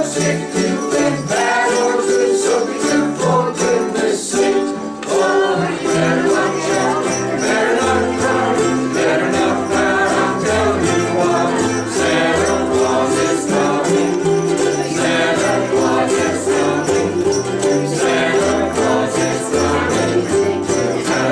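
A group of ukuleles strumming a Christmas tune together, with jingle bells shaking along and a plucked bass line underneath.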